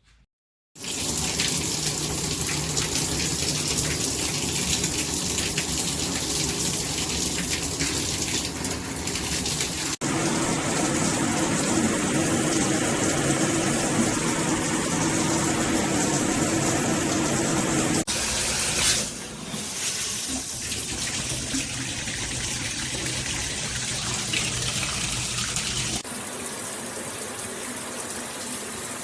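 Cobbe handheld shower head spraying water: a steady, loud rush of water that starts just under a second in. The character of the spray's sound changes abruptly three times, about every eight seconds.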